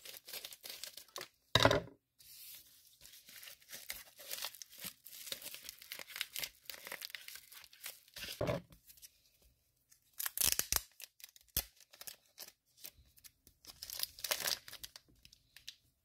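Black plastic bubble mailer being torn open by hand, in a run of rips and crinkling rustles. The sharpest, loudest rip comes about a second and a half in, and stronger tearing bursts follow later.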